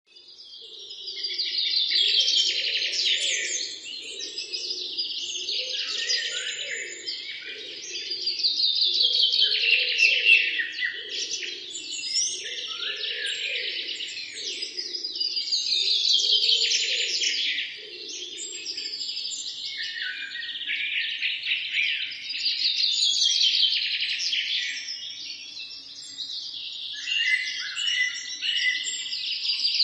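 Birds chirping and singing in dense, high phrases that swell and fade every few seconds. For about the first half a softer, lower pulsing sound runs beneath them.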